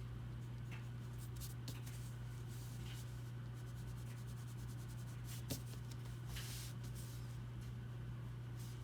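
Short scratchy strokes of a drawing tool on paper, with a longer stroke about six seconds in and a small tap just before it, over a steady low hum.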